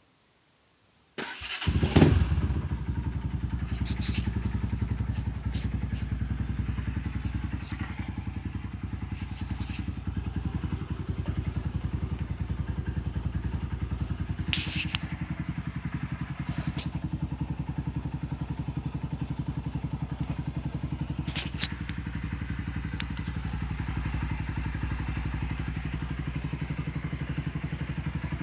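Small Honda CB motorcycle engine starting about a second in with a thump, then idling steadily with an even firing beat and a few short clicks over it.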